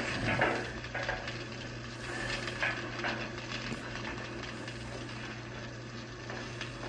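Film soundtrack with no dialogue, played through a laptop speaker and picked up by a phone: faint scattered light clatter over a steady low hum.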